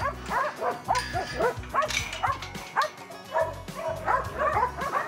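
A pack of kelpie working dogs barking and yapping excitedly, many quick overlapping yelps with no break, over background music with a low bass.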